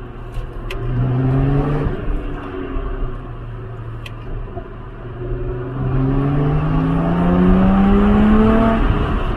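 Lotus Exige engine and exhaust under hard acceleration. The revs climb briefly, drop back, then rise in one long steady pull before falling away near the end, as at a gear change. A few sharp clicks are heard near the start.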